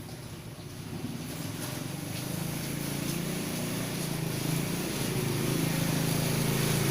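An engine running steadily at a constant speed, growing gradually louder.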